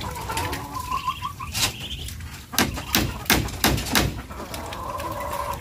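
A hammer striking the bamboo slats of a pen fence, a series of sharp knocks starting about a second and a half in. A bird chirps at the start, before the knocking.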